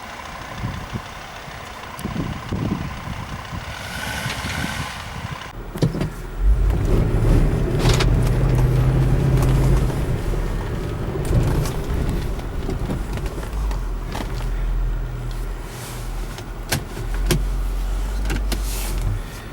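Mercedes-Benz ML-Class SUV driving off-road: the engine's low rumble swells loud about six seconds in and holds, with scattered sharp knocks and clunks over it.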